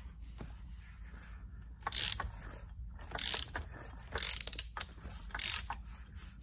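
Ratchet wrench on the crankshaft of a small two-stroke motorized-bicycle engine, clicking in four short runs about a second apart as the crank is turned back and forth by hand. The crank is being turned to check that the piston moves freely in the freshly fitted cylinder.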